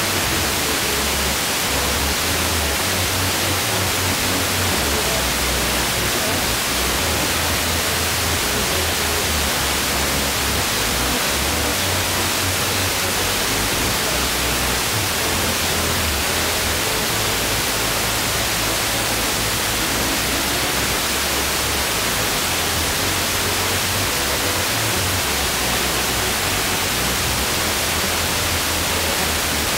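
FM radio receiver tuned to 89.8 MHz giving loud, steady hiss with an irregular low buzz that cuts in and out underneath. The interference is blamed on the chopping of a switching power supply that wrecks the stereo encoder of a low-power FM transmitter.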